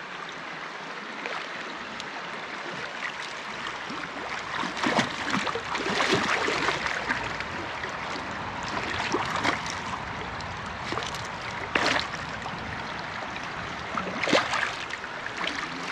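River water rushing and rippling close to the microphone, broken by several short splashes from a hooked trout thrashing at the surface while being played in, the loudest about twelve seconds in.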